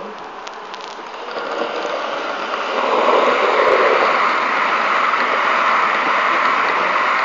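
Model train running past on the layout's track, its motor and wheels making a steady running noise that grows louder over the first three seconds as it comes close, then holds steady as the coaches pass.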